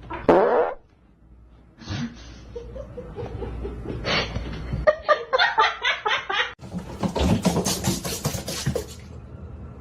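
People laughing in quick, rhythmic pulses, over a few home-video clips spliced together, with an abrupt cut about two-thirds of the way through.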